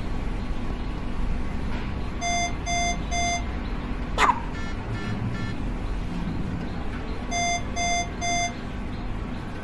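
Hospital patient monitor alarm beeping in groups of three, twice, with a fainter second series of beeps between them. This three-beep pattern is typical of a medium-priority monitor alarm. About four seconds in, a single sudden sharp sound, the newborn's hiccup, is the loudest moment.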